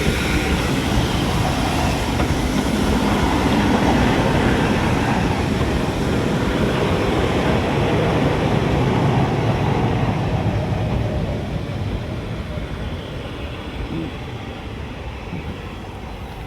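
Mogul steam locomotive 9351 and its train running along the line with a rumbling rail noise. It is loudest a few seconds in, then fades steadily as the train draws away.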